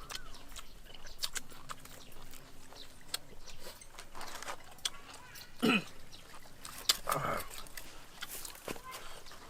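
Two short animal cries, the first falling steeply in pitch, about a second and a half apart after the middle, over scattered light clicks and taps.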